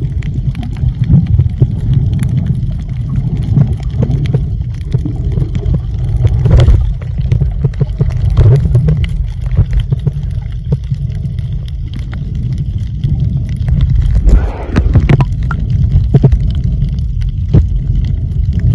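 Muffled underwater sound picked up by a submerged camera: a steady low rumble of moving water with scattered clicks and bubbling gurgles.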